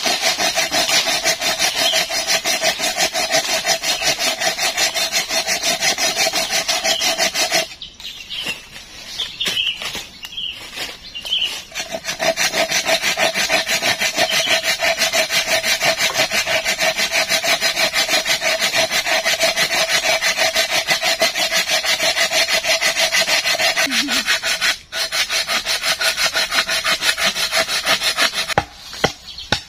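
Hand saw cutting through a log in quick back-and-forth strokes with a steady ringing note. It stops for about four seconds a third of the way in, then saws on again. A few separate sharp knocks come at the very end.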